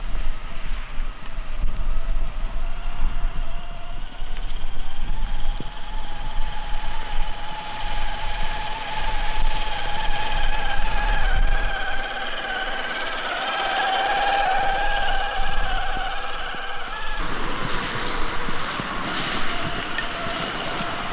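Traxxas TRX-4 Sport RC crawler with a HobbyWing XeRun sensored brushless motor, its motor and gears whining as it drives through mud and puddles. The pitch rises and falls with the throttle.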